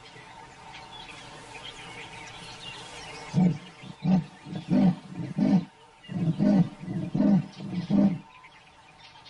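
Female leopard's sawing call: a series of hoarse, rasping grunts in two runs of about two seconds each, the call she uses to advertise where she is. Birds chirp faintly before it starts.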